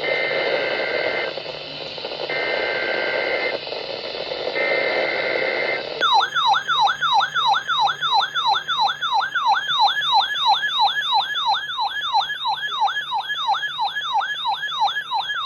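Emergency Alert System broadcast over weather radio, with radio static behind it: three short bursts of data tones, the EAS header, then from about six seconds in a warbling, siren-like alert tone sweeping up and down about three times a second.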